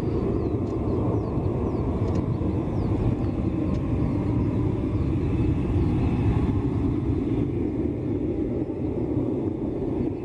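Fighter jet engines running: a steady, loud low rumble with a slight swell near the middle.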